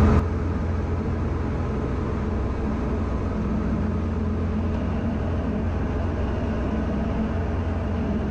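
Steady drone of a Diamond DA40's 180 hp Lycoming IO-360 four-cylinder engine and propeller, heard from inside the cabin during the climb after takeoff. The drone drops in loudness just after the start, then holds even.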